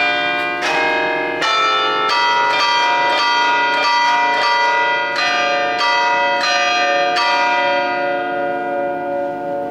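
Ten-bell Cavadini church bell ring (1950, tuned in B-flat) playing an allegrezza: the bells are struck one after another in a quick tune of about a dozen strokes, played by hand through an electric system. Near the end the strokes stop and the bells ring on, slowly fading.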